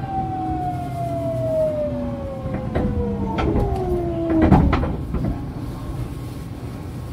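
Fukuoka City Subway 2000-series train braking for a station, heard from on board: the traction motor whine falls steadily in pitch, with a few clunks. A loud knock comes about four and a half seconds in as the whine dies away, leaving a low running rumble.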